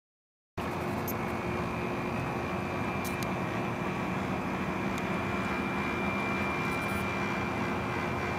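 Twin Traxxas Titan electric motors of a 1:24 scale RC PT boat running at speed: a steady high motor whine over a constant rushing noise. It cuts in suddenly about half a second in, after dead silence.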